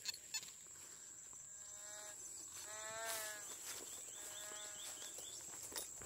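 A farm animal calling three times, each call drawn out for most of a second, the middle one the longest and loudest.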